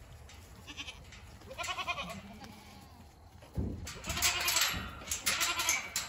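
Goats bleating: a wavering call about a second and a half in, then several more from about four seconds in. A short low thump comes just before the later calls.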